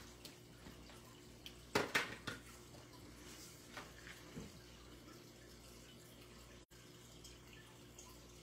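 Hands handling and setting down cardstock on a craft table: a short cluster of sharp rustles and taps about two seconds in, then a few fainter touches, over a low steady background hum.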